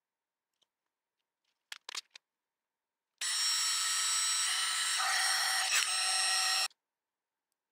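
A few light clicks of tools being handled. Then a handheld electric heat gun runs for about three and a half seconds, its fan blowing with a steady whine, and switches off abruptly while aimed at freshly soldered wires.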